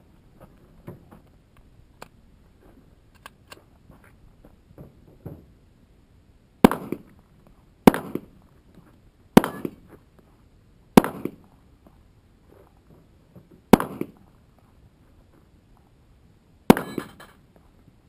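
Pistol shots fired one at a time at steel targets: six sharp shots over about ten seconds, one to three seconds apart, starting about a third of the way in.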